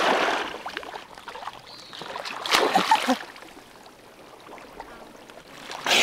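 Muddy swamp water sloshing and splashing as a person ducks under it, loudest at the start and dying away, with a shorter splash about two and a half seconds in and a louder splash right at the end.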